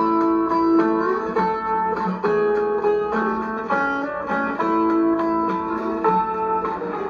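Plucked guitar music from a radio station, played through the speaker of a 1970s Sanyo 10FA-T40WS flip-clock radio: a run of distinct notes that each start sharply and fade.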